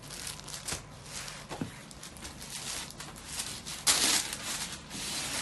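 Kanjivaram soft silk saree rustling and swishing as it is handled and unfolded, with a louder swish about four seconds in.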